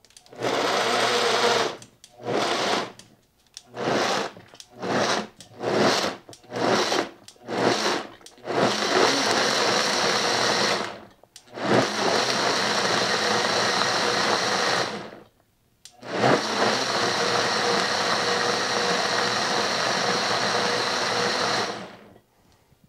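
Vitamix high-speed blender chopping a full jar of tomatoes: first a string of short pulses, then three longer runs of a few seconds each with brief pauses between them.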